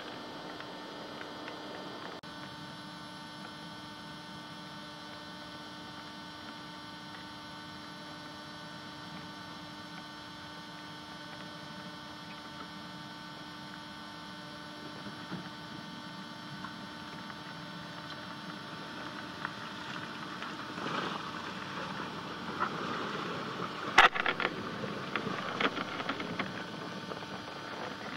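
Steady electrical hum with hiss from the recording. About twenty seconds in, the Subaru Forester XT draws close over the rutted mud track, with crackling and a single sharp knock a few seconds later.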